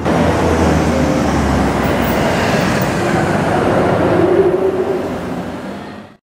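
Lamborghini Huracán's V10 with a Fi Exhaust accelerating, its engine note rising to a peak about four seconds in and then fading away. The sound cuts off suddenly near the end.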